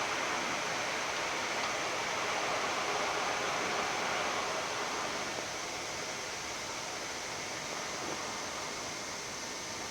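Steady rushing background noise inside a Boeing 787-10 flight deck as the airliner taxis after landing, easing slightly about halfway through.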